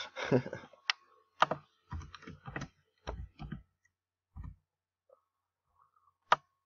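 Computer keyboard being typed on in short, irregular keystrokes, with gaps between them and one sharper click about six seconds in.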